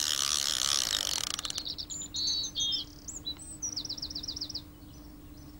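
A fishing reel's drag ratchet buzzing as a hooked tench pulls line, stopping about a second and a half in. A songbird then sings a few short notes and ends with a fast run of repeated notes.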